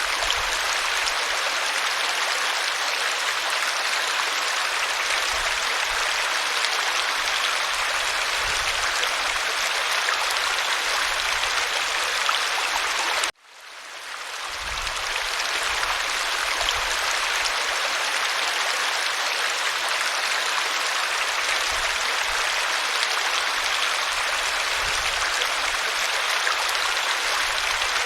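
Waterfall rushing in a steady, dense roar. About halfway through it cuts out suddenly for a moment and fades back in over a second or two, like a loop restarting.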